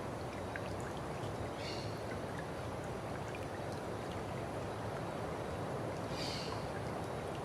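Steady rush of a flowing stream, with two brief high chirps about two and six seconds in.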